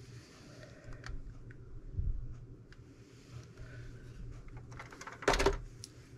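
Steam iron pressing fabric on an ironing board: a low knock about two seconds in, small clicks and taps, then a short, loud hiss of steam near the end.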